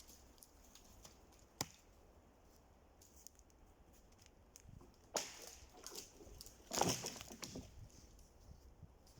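Axe work on a dry pine being felled: one sharp crack about a second and a half in, then two heavier, longer woody impacts around five and seven seconds in.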